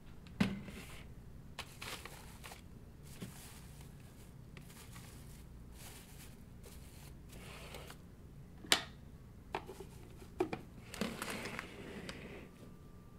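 Rustling and crinkling handling noises with two sharp knocks, one just after the start and a louder one about two-thirds of the way through, plus a few lighter clicks, over a steady low hum in a small room. A faint steady tone comes in near the end.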